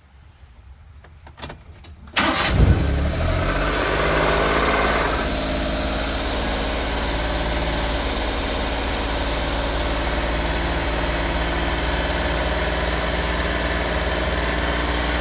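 1997 Suzuki Carry's 660 cc F6A three-cylinder engine being started: a few clicks, then about two seconds in it cranks and catches at once. It runs a little faster for a couple of seconds, then settles to a steady idle. This is the first run after an oil change, to circulate the fresh oil before the level is checked.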